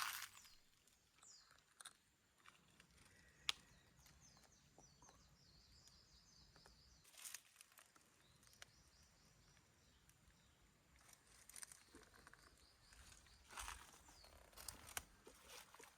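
Faint outdoor ambience with a bird chirping in a rapid, wavering series, a sharp click about three and a half seconds in, and scattered brief rustles.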